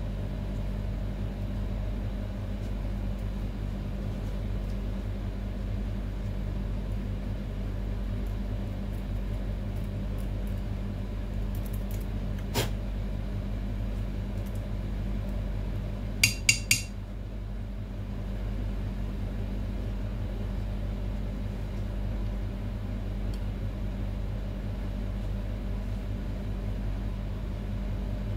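Steady low machine hum, with small metal parts of a barber chair's hydraulic pump clinking as they are handled: one sharp click about halfway in, then three quick ringing clinks a few seconds later.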